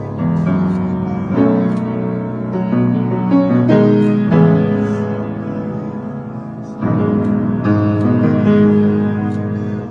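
Piano music: slow, sustained chords, a new chord struck about every one to two seconds.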